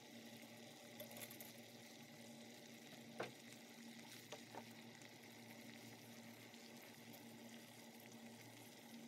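Faint bubbling of water at a rolling boil in a steel pot as dry spaghetti noodles go in, with a sharp click about three seconds in and a few softer ones.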